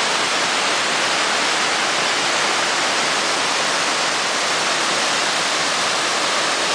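Muddy floodwater of the Guastatoya River pouring over a low concrete dam, a steady rushing sound without break; the river is running high the day after a flood.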